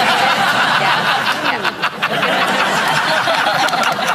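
Studio audience and panellists laughing together, a dense crowd laugh with a few claps coming in toward the end.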